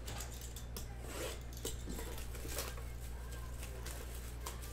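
Cardboard retail box of trading cards being gripped and torn open by hand: an irregular run of short crackling tears and taps, over a steady low hum.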